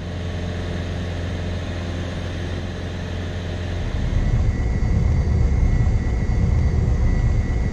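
Cabin drone of a light single-engine airplane's engine in cruise, a steady deep hum. About four seconds in it grows louder and rougher, and a faint steady high tone sounds over it.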